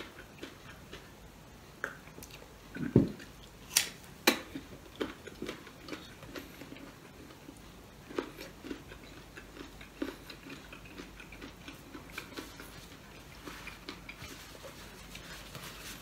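Close-up chewing and mouth sounds of a person eating a meal with his hands: many small wet smacks and crunches. There is a low thump about three seconds in and two sharp clicks about a second later.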